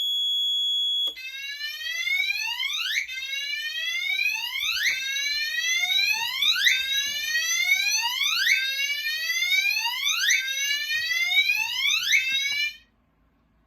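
A steady high-pitched tone for about a second, then a fire alarm voice-evacuation system (Notifier VEC-25/50) sounding its rising whoop evacuation tone, one sweep about every two seconds, cutting off abruptly near the end. It is the evacuation signal, set off by activating a duct smoke detector on the system.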